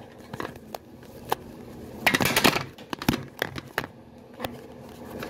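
Phone being handled right at its microphone: scattered clicks and taps, with a burst of rustling about two seconds in.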